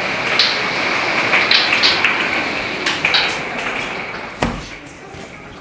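Hailstones ticking against window glass over the steady rush of heavy rain and wind in a severe thunderstorm. A sharper knock comes about four and a half seconds in, and the rain noise fades toward the end.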